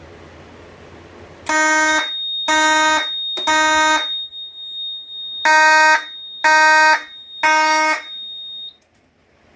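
Fire alarm horn sounding the temporal-three evacuation pattern: two groups of three short, loud blasts with a longer pause between the groups, the system in alarm after an addressable smoke detector was tripped with a magnet. A steady high-pitched beep runs under the blasts and stops shortly after the last one.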